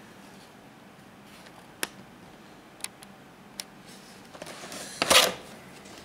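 Cardboard box being opened by hand: a few light clicks, then, about five seconds in, a short loud rustle of cardboard as the top flap is pulled open.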